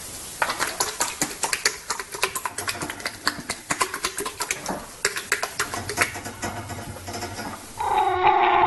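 Quick, irregular clicks and taps from an animal, several a second; about eight seconds in, a dog starts a long, drawn-out whining growl.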